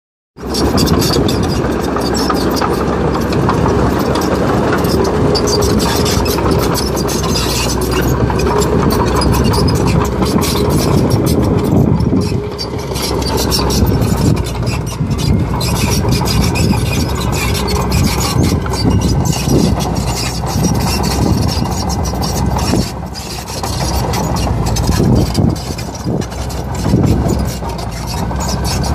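Excavator engine running steadily, with a faint whine in roughly the first twelve seconds.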